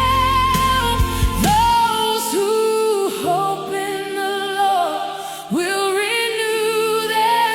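Worship music with long held, wordless sung notes that waver and glide from one pitch to the next over layered backing; the low bass drops out about two seconds in.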